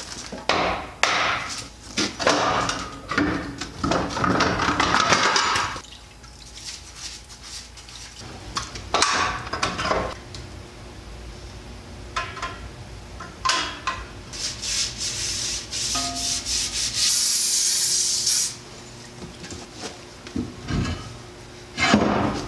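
Hammer blows on a semi truck's drive-axle hub, a quick series over the first six seconds, then scattered knocks, scraping and rubbing of metal parts, with a hissing burst of about a second and a half late on.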